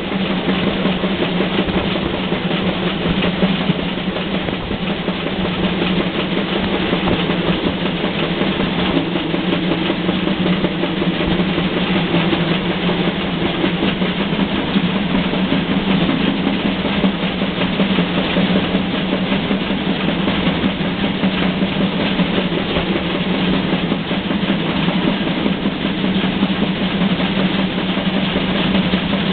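Steam-hauled train behind locomotive BR 64 518 running steadily: a continuous rumble and clatter with a steady low hum and no break.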